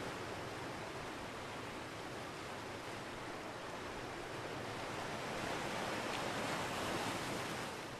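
Sea waves: a steady rush of surf that swells louder toward the end.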